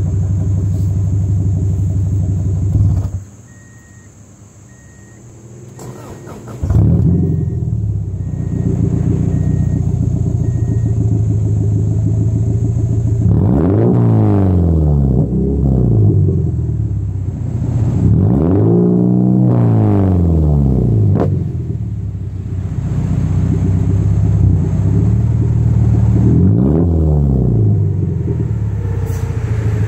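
Exhaust of a 1997 Subaru Legacy Outback's EJ25 2.5-litre flat-four with the rear muffler deleted and only the resonator left, heard at the tailpipe. It idles, cuts out about three seconds in, and starts up again about three seconds later. It is then revved three times, each rev rising and falling, the middle one the longest. A chime beeps steadily through the stop and restart.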